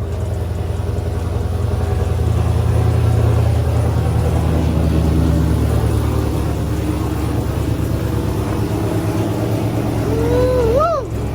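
2018 Camaro ZL1's supercharged 6.2 L V8 idling steadily just after being started, the first run after a flex fuel sensor install. Near the end a short whistle-like tone rises and falls.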